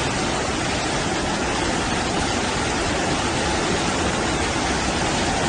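Torrent of muddy floodwater rushing past, a steady, unbroken noise of churning water.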